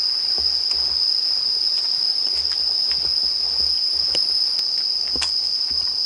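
Night insects keeping up one steady, high, unbroken trill, with faint footsteps on a paved path underneath.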